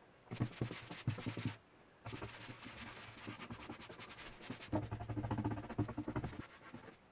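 Paintbrush bristles brushing tung oil across a plywood desktop: a run of scratchy strokes, with a brief pause about a second and a half in.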